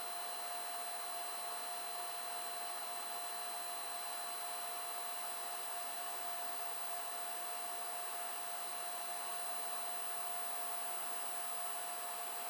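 Cooling fans of a powered-on 3D printer running steadily: an even whir with a thin steady whine over it.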